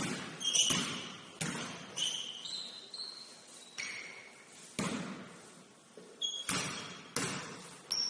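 Basketball bouncing on a hardwood gym floor with irregular spacing, about eight bounces echoing in the hall, mixed with short high sneaker squeaks.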